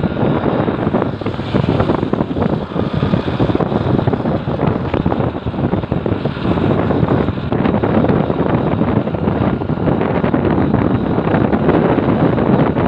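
Wind buffeting the microphone of a moving motorcycle, with a dense, fluttering rush of riding noise from the bike on a wet road.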